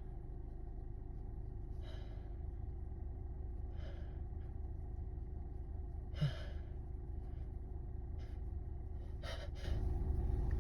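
A person breathing and gasping in the build-up to a sneeze: short noisy breaths every couple of seconds, coming quicker and louder near the end, over a steady low hum.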